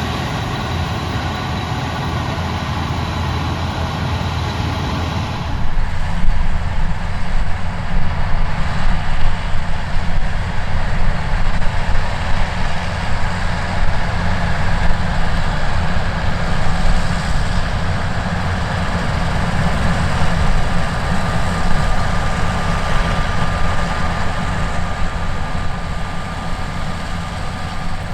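Gleaner S97 combine harvester running in the field while harvesting wheat: a steady engine and machine drone. About five and a half seconds in, the sound changes abruptly and becomes louder and rougher, with more low rumble.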